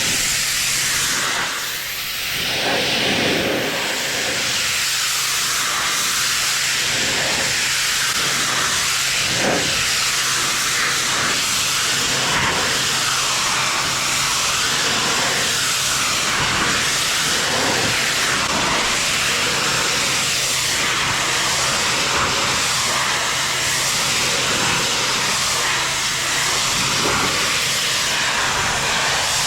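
Pressure washer spraying a pool deck: a loud, steady hiss of the water jet hitting the surface, with a steady low hum from the machine underneath.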